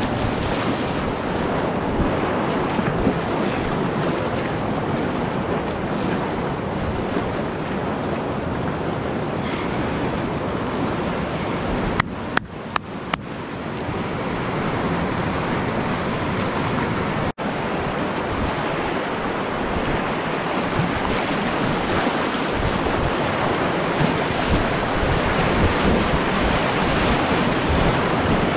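Rushing whitewater of a river rapid, a steady rush of churning water. It breaks off briefly a few times a little before the middle, and once more a few seconds later.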